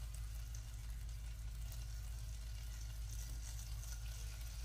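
Chicken thighs sizzling as they are laid skin side down in hot butter and bacon grease in a stainless sauté pan. The sizzle swells briefly as pieces go in, over a steady low hum.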